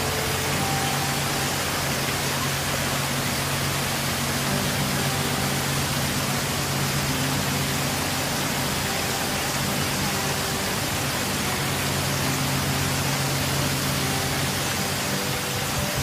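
Steady, even rushing noise of the seashore, wind and small waves breaking on the beach, with faint background music notes underneath.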